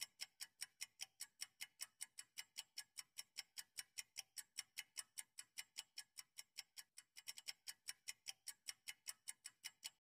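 Faint clock-ticking sound effect marking a quiz answer timer: quick, even ticks, about five a second.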